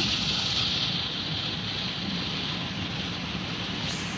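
Driving in heavy rain, heard inside the cab of a UAZ Buchanka van: a steady hiss of rain and wet road over the low rumble of the engine. The hiss brightens slightly shortly before the end.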